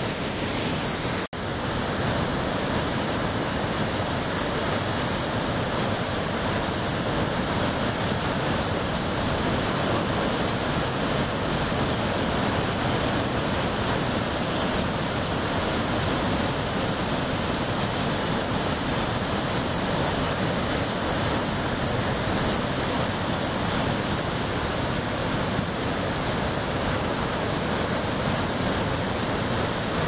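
A river in flood after heavy rains pouring over rocky falls and rapids: a loud, steady rush of whitewater, with a brief break about a second in.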